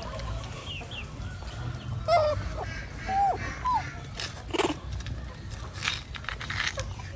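Chickens clucking: a few short calls in the middle, with some brief rustling noises after them.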